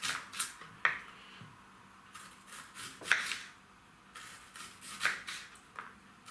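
Kitchen knife slicing a peeled onion into rings on a plastic cutting board: a short crunch through the onion ending in a sharp tap of the blade on the board, about five cuts, spaced irregularly a second or two apart.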